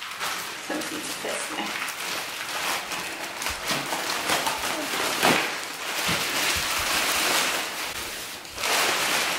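Large sheet of clear plastic film crinkling and rustling as hands pull it off a children's ride-on electric car: a dense, continuous crackle that swells and fades with the handling.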